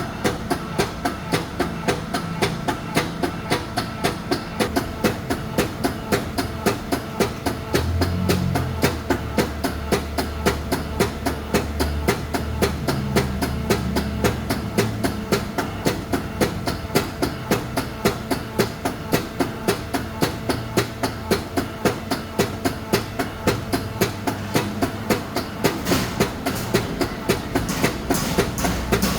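Shock absorber being cycled in a test, giving a steady rhythmic clacking of about three knocks a second, with a low hum joining in for a while in the middle.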